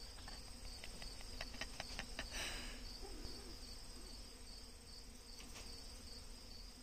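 Crickets chirping in a steady, high, pulsing trill. A few light clicks and a brief rustle come about two seconds in.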